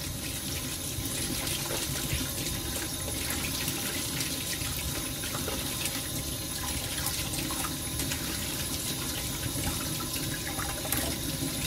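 Kitchen tap running steadily into a stainless-steel bowl of peeled shrimp in a steel sink, as hands rinse the shrimp in the stream.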